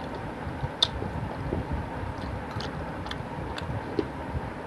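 Eating by hand: a few soft, sharp clicks and wet smacks as fingers pick through fish curry on a steel plate, the sharpest about a second in, over a steady low background rumble.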